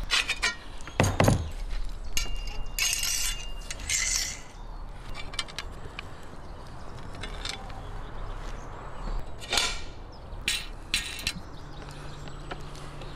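Steel roasting spit and its two-pronged spit forks being handled: scattered metal clinks and short scrapes as the forks are slid onto the rod, with a low thump about a second in.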